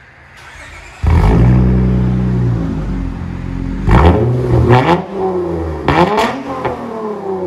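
2006 Acura TL's 3.2-litre V6 starting about a second in and running loud through a 3-inch straight-pipe exhaust with its catalytic converters kept, settling toward idle, then blipped in several quick revs from about four seconds in.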